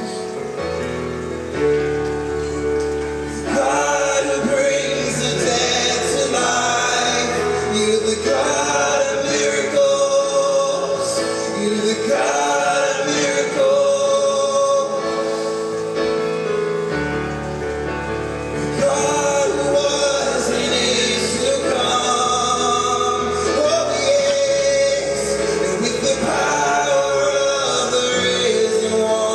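Worship song sung to instrumental accompaniment: voices, a man's most prominent, over long held chords.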